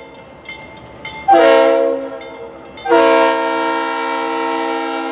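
Diesel freight locomotive's air horn sounding a chord: faint at first, then a short blast about a second in, then a long blast from about three seconds in.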